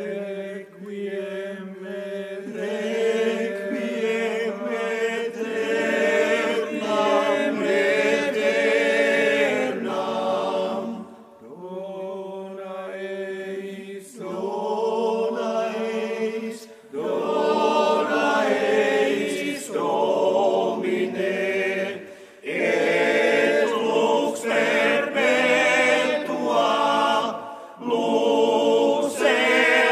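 Men's choir singing, phrase by phrase, with brief breaks between the phrases.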